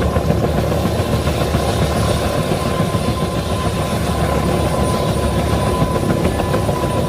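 Bell 205 helicopter running steadily, its two-bladed main rotor beating evenly over a steady high whine.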